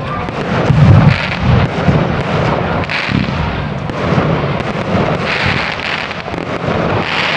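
Fireworks display: a dense run of deep booms from bursting shells, the loudest about a second in, with crackling and hissing between them.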